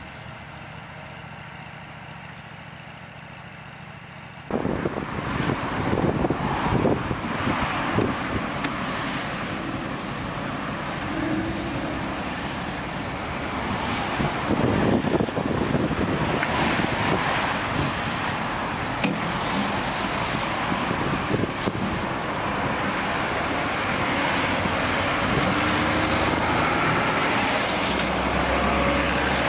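Heavy road-construction machinery running: a quieter engine hum, then about four and a half seconds in a sudden switch to louder machine noise with irregular knocks and clatter.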